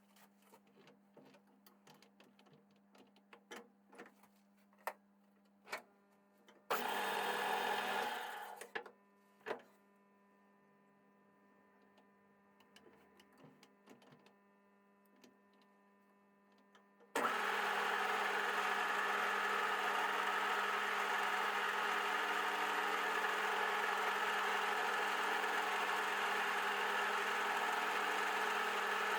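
Light clicks and taps of metal parts being handled, with a short loud burst of machine noise about seven seconds in. About seventeen seconds in, an electric workshop machine starts and runs steadily.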